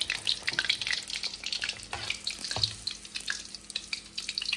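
Fish pakora deep-frying in hot oil in a wok: a steady sizzle with many quick crackling pops from the batter, and one dull knock a little past halfway.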